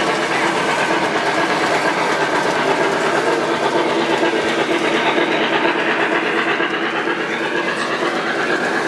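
Three-rail O-gauge model steam locomotive and its auto-loader freight cars running past close by on the track: a steady rolling sound of metal wheels on the rails with motor hum.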